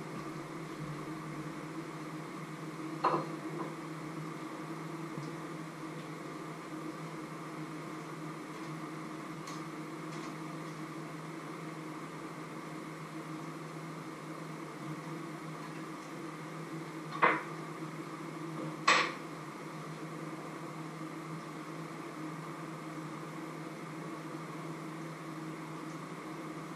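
Steady kitchen hum with three sharp clinks of a utensil against a pan: one about three seconds in and two close together a little past halfway.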